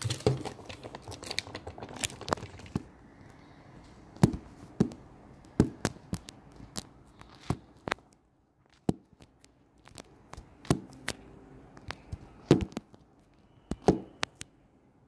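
Irregular sharp clicks and knocks of hard plastic toy pieces being handled and set down on a tabletop, with crinkling of plastic packaging in the first few seconds.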